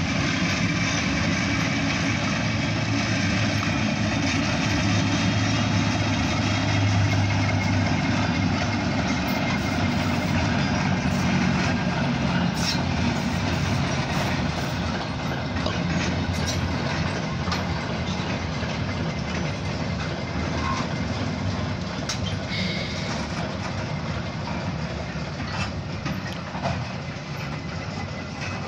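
Diesel switcher locomotive passing with its engine running, followed by a short string of covered grain hopper cars rolling by. The rumble includes scattered wheel clicks and slowly fades toward the end.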